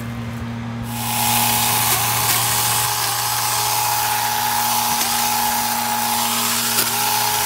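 Saker mini battery chainsaw starting about a second in and running with a steady high whine and chain hiss, cutting small branches; its pitch dips briefly three times as the chain bites and the motor slows under load.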